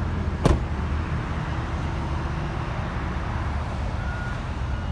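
Steady outdoor rumble and hiss of road traffic, with one sharp knock about half a second in and a faint short beep near the end.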